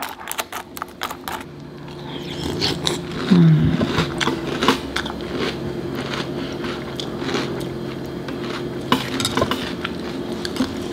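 A utensil clicking and scraping against a glass bowl as cereal in milk is stirred and scooped, many small clicks over a steady low hum.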